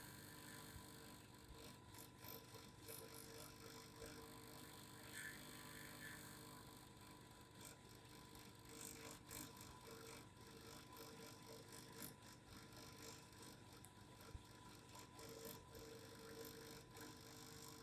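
Faint, steady hum of a vibrating device, with scattered light ticks.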